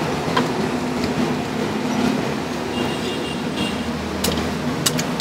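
Steady rumble of street traffic, with a few sharp knocks, most of them near the end.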